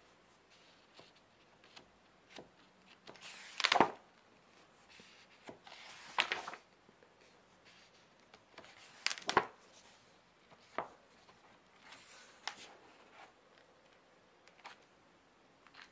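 Pages of a large hardcover art book being turned by hand: a papery swish every few seconds, five in all, the loudest about a quarter of the way in.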